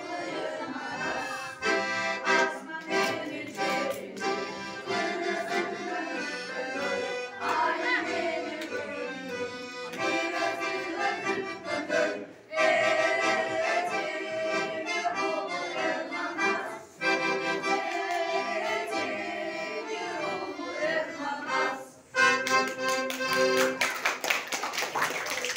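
Piano accordion accompanying a group of children and adults singing a Kyrgyz folk song. The music breaks off briefly a few times, and clapping starts near the end.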